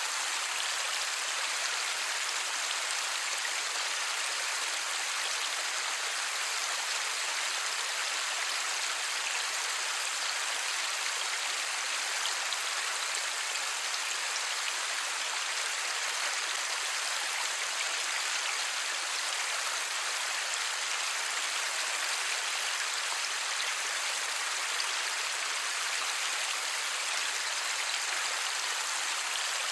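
Light rain falling steadily: an even, unbroken hiss of many small drops, no thunder.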